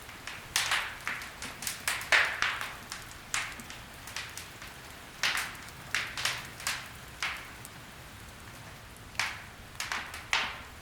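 Wood fire crackling in a fireplace: irregular sharp pops and snaps over a soft steady hiss, with a brief lull about two-thirds of the way through.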